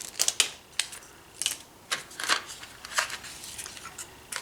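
A box of Bertie Bott's jelly beans being opened by hand: scattered crinkles and sharp clicks of packaging being handled.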